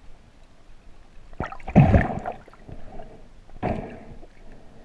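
Muffled underwater gurgling and knocks picked up by a submerged camera as the freediver moves, in two bursts: a louder one about a second and a half in and a shorter one near the end.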